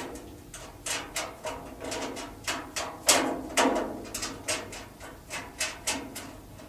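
Screws and nuts being snugged by hand into a sheet-metal range hood blower and liner: an irregular string of sharp clicks and taps, about two or three a second, the loudest about three seconds in.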